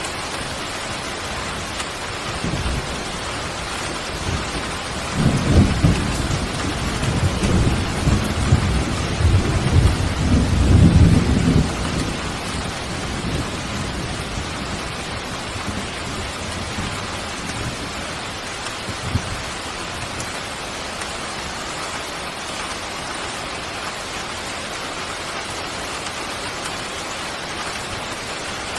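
Steady rain, with a roll of thunder about five seconds in that rumbles low for several seconds, swells to its loudest near the end and dies away.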